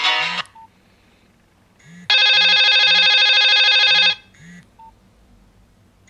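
A Nokia 2330 Classic previewing its ringtones while they are scrolled through. A musical ringtone breaks off about half a second in. About two seconds in, a loud, steady, buzzing electronic tone plays for two seconds and cuts off suddenly. A short single beep sounds before it and another after it.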